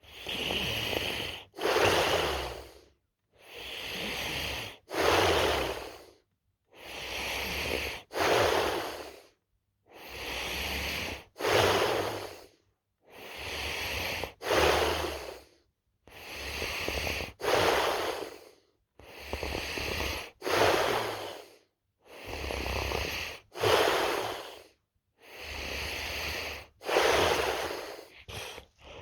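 A sleeping person snoring in a slow, regular rhythm, about one breath every three seconds. Each breath comes in two noisy parts, the second shorter and louder, with a silent pause before the next.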